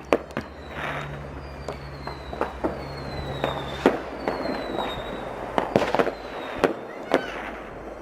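Distant fireworks going off in a scattered run of bangs and pops, the loudest ones coming about two-thirds of the way in. A thin high whistle falls in pitch four times over the first half.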